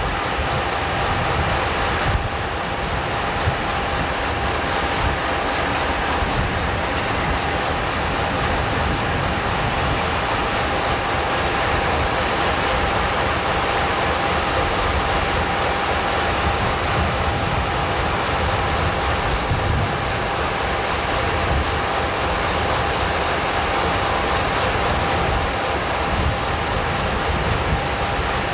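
Reading & Northern diesel locomotive running at low speed, a steady rumbling drone with no distinct knocks or horn.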